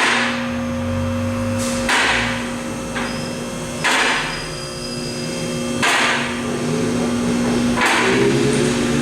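A vehicle lift raising a car. Its motor hums steadily, and a sharp clack comes about every two seconds as it rises.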